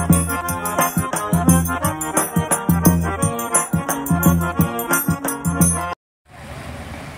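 Background music with a steady beat, shaker-like percussion and sustained bass notes, cutting off about six seconds in. After a brief gap, a steady, even hiss of outdoor noise follows.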